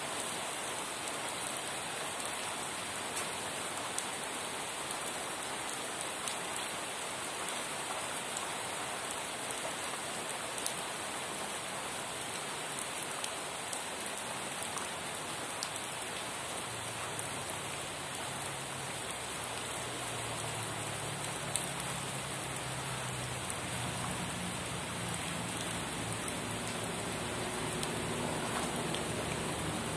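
Steady rain falling on a surface, with scattered individual drop taps. From about halfway through, a low rumble builds beneath it.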